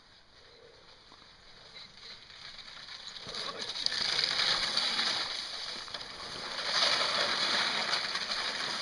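A sled sliding over glare ice, its runners making a hissing scrape that grows louder from about three seconds in as the sled comes closer.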